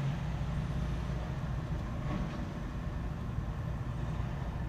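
A steady low rumble, with a faint knock about two seconds in.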